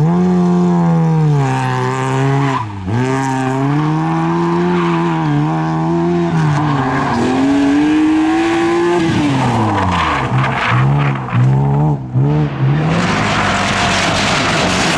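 Rally car engines revving hard as the cars slide through a corner one after another, the pitch climbing and falling with throttle and gear changes. About two-thirds of the way in come a string of quick throttle blips. Near the end the sound turns harsher and noisier, with tyres squealing.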